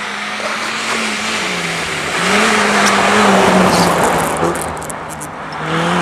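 Volvo 240 rally car's engine revving hard as it slides past on snow, the engine note dipping and climbing with gear changes and throttle, loudest midway as the car passes close, over the hiss of sprayed snow and tyres. A quick run of sharp clicks about four seconds in, and the engine note rises again near the end.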